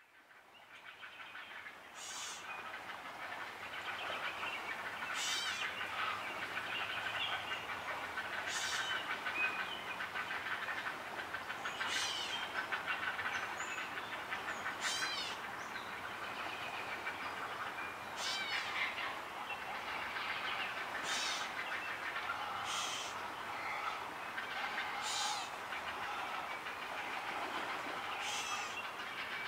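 Great blue heron chicks in the nest giving their rapid, clattering begging calls at feeding time. Short sharp calls stand out over the chatter about every three seconds.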